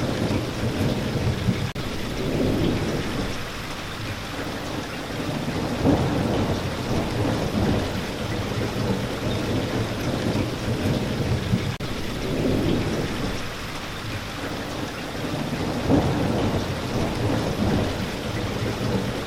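Steady rain with low rumbles of thunder that swell and fade several times.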